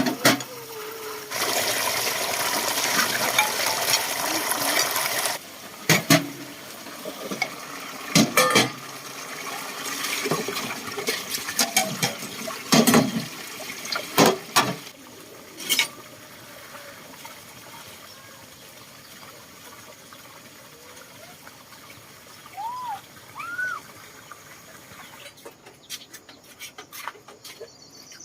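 Water pouring and splashing for about four seconds, then a series of scattered sharp knocks and clatter.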